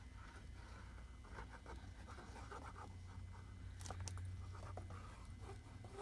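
Faint scratching and rustling of paper being handled and marked by hand, with a few light clicks about four seconds in, over a low steady hum.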